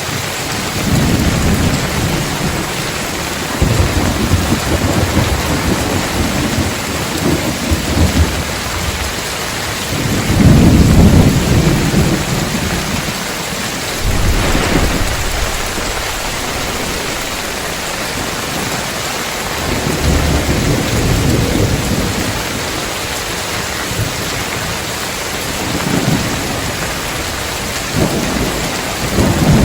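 Heavy rain pattering steadily on roof tiles, with thunder rolling in low rumbles again and again; the loudest roll comes about ten seconds in.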